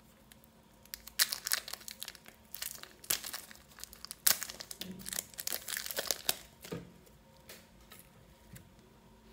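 Thin clear plastic packaging crinkling and crackling in quick bursts as a block of soft modelling clay is peeled out of its tub and wrapper. It starts about a second in and dies away near seven seconds.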